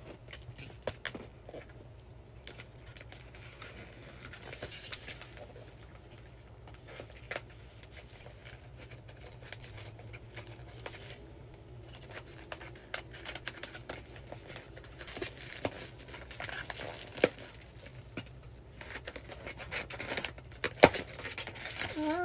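Cardboard packaging being cut open with scissors and torn by hand: scattered snips, scrapes, rustles and crinkling, with a few sharper clicks toward the end.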